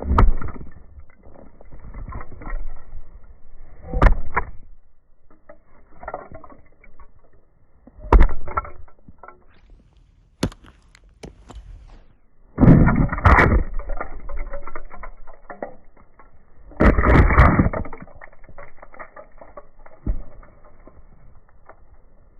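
Work-boot soles stomping and grinding on asphalt, crushing small hard objects. Single sharp stomps come a few seconds apart, with two longer scraping, crunching stretches of about a second each, and small cracking clicks in between.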